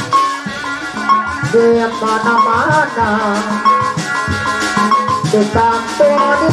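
Live Sundanese gamelan-style ensemble playing: kendang drums beat under ringing metallophones, with a wavering melodic line held above them.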